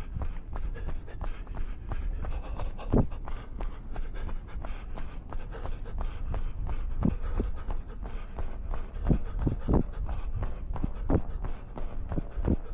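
A runner's breathing and footfalls on snow, over a constant low rumble, with a few sharper knocks standing out.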